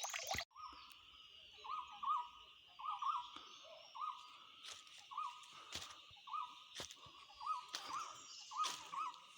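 Running water cuts off about half a second in. Then a bird calls over and over, short hooked notes about every half second, over a steady high buzz, with a few sharp clicks in between.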